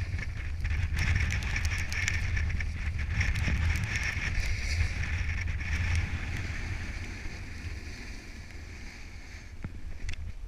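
Snowboard sliding over snow, a steady hiss with wind rumbling on a GoPro microphone, fading over the last few seconds as the rider slows to a stop.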